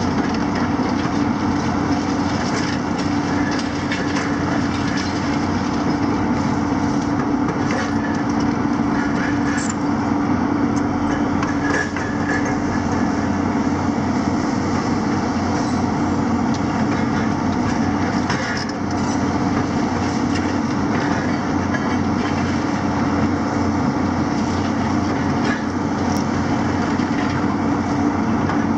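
Diesel engines of a JCB and a Hitachi 250 demolition excavator running steadily under load. Scattered clinks and knocks of rubble and scrap are handled by their grabs.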